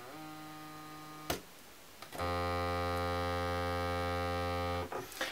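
Homemade reverse avalanche oscillator modules droning a steady buzzy tone: faint at first, a click about a second in as a patch cable is handled, then about two seconds in a louder, lower buzz that holds for about two and a half seconds and cuts off.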